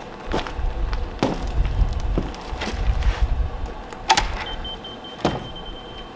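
Cordless power tool's motor running in uneven spurts, with several sharp knocks against wood. A thin steady high whine comes in for the last second or so.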